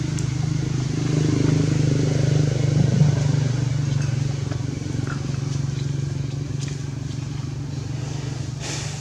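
Steady low hum of a running motor, with a brief rustle near the end.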